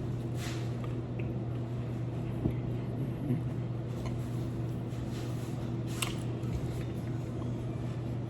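Faint chewing and wet mouth sounds of someone eating, with a few soft clicks, over a steady low hum.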